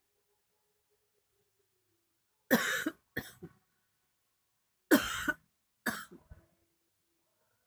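Coughing during sleep: two double coughs, the first pair about two and a half seconds in and the second about five seconds in.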